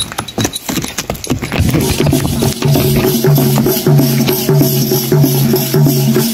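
Village folk dance music: sharp wooden clicks throughout, and from about two seconds in a low pitched phrase that repeats in a steady rhythm about every half second.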